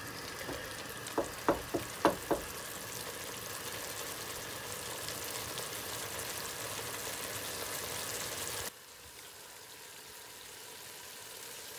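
Mutton pieces sizzling in masala and oil in a stainless steel pot, fried until the oil separates from the masala. A wooden spatula knocks against the pot four times between one and two and a half seconds in. The sizzle drops suddenly quieter about three quarters of the way through.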